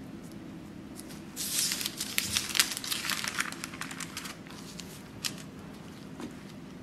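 Baking parchment crinkling as a square of it is lifted and handled, a crackly rustle with many small clicks lasting about three seconds, starting over a second in. A single soft click follows near the end.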